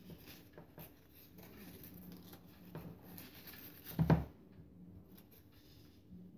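Crepe paper rustling and crinkling as it is handled and wrapped, with one loud thump about four seconds in.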